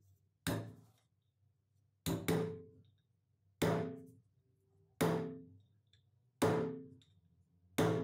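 Hammer striking a nail held as a punch against an old iron coffee grinder, trying to knock out a stuck part that won't come out. Seven sharp metallic strikes about a second and a half apart, one of them doubled, each ringing briefly.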